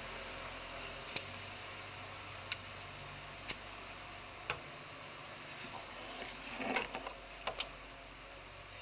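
Sharp, irregular clicks over a steady low hum: single clicks about once a second at first, then a small cluster and a quick double click near the end.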